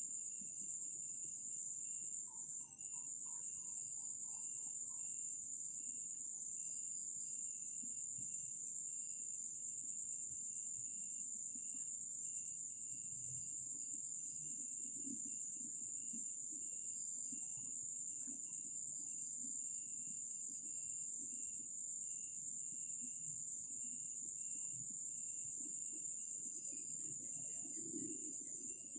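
Night insects, crickets, keep up a steady high-pitched trill while a second insect chirps in short, regular pulses at a lower pitch.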